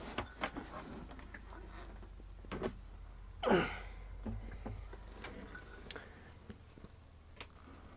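Faint handling sounds of an Eclectic Energy D400 wind generator being lifted and turned over: scattered light knocks and clicks from its plastic body and blades, with one louder breathy swish about three and a half seconds in.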